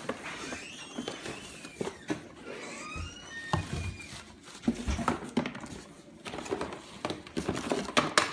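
Cardboard packaging and plastic wrapping being handled: rustling, scraping and light knocks, with a few short squeaks in the first half and a burst of sharp clicks near the end.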